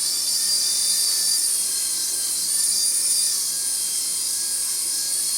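Hover-ball toy helicopter in flight: its small electric motor and rotor give a steady high-pitched whine that wavers slightly in pitch.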